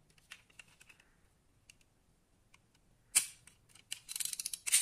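Handling noise from a small diecast toy car being turned in the fingers: scattered light clicks and taps, a sharp click about three seconds in, then a dense run of clicking and rattling near the end.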